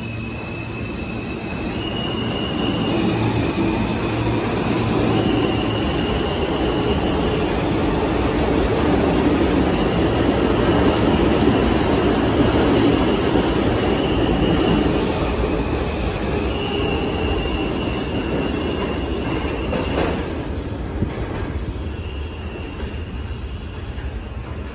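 A New York City subway J train pulling out of an underground station. The rumble and clatter of the cars on the track swell as they pass, then fade as the train heads into the tunnel, with high wheel squeal coming and going throughout.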